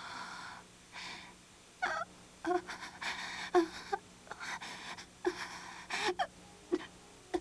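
A woman gasping and breathing heavily in several breathy gasps, with short faint moans between them.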